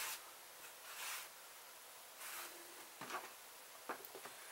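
Faint handling sounds: a couple of soft rustles, then a few light clicks about three and four seconds in as a one-handed bar clamp is fitted across the glued strips.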